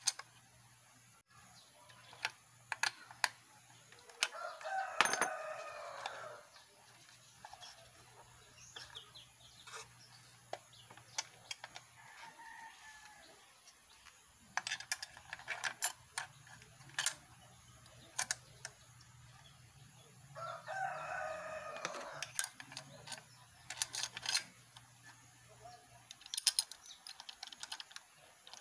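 Small sharp metal clicks and taps from handling the screws and washers of an electric planer's blade clamp plate. A rooster crows twice, about four seconds in and again about twenty seconds in, each crow about two seconds long.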